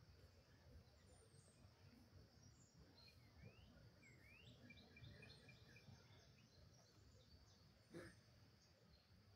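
Near silence with faint bird chirps: a couple of rising calls about three seconds in, then a short run of quick repeated notes. A single faint click near the end.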